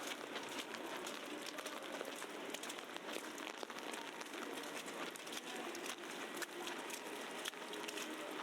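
Street ambience of a snowy city at night: a steady dense hiss peppered with many small crackling ticks, with faint distant voices underneath.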